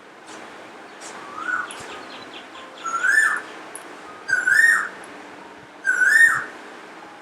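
A parrot calling: four short calls that each rise and fall in pitch, repeated about every second and a half, the first one weaker than the three after it.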